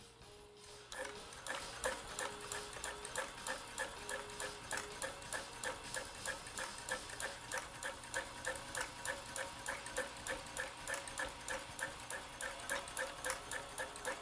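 Janome Combi DX 502 sewing machine sewing a straight stitch on its slow speed setting. It starts about a second in and runs at an even rhythm of about three to four needle strokes a second.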